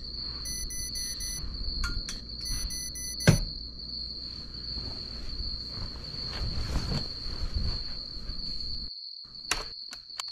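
Digital bedside alarm clock beeping in quick bursts of four, twice, the second burst cut short by a sharp knock about three seconds in as it is switched off. A steady high-pitched trill runs underneath, with faint rustling afterwards.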